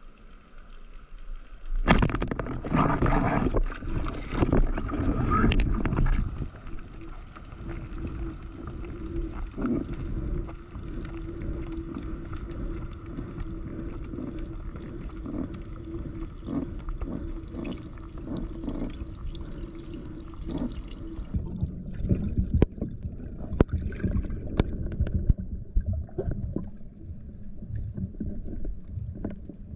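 Underwater water noise from a spearfisher's dive: loud knocks and rushing water in the first few seconds, then a steady wash with a low steady hum through the middle. After a change about two-thirds in, irregular sloshing and muffled splashes as the diver takes recovery breaths at the surface.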